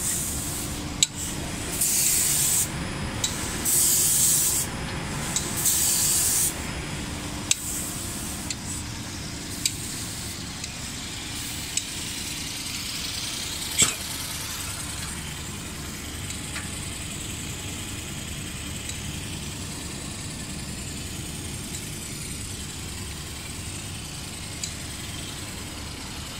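Spray guns of an automatic wood-panel painting line hissing in three short bursts of about a second each in the first seven seconds. Steady machinery noise from the line runs underneath, with one sharp click about halfway through.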